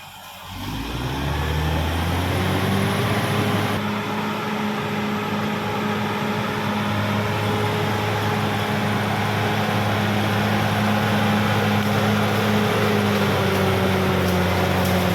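Caterpillar D6R XL bulldozer's diesel engine rising in pitch over the first second or two, then running steadily at high revs, easing down slightly at the end.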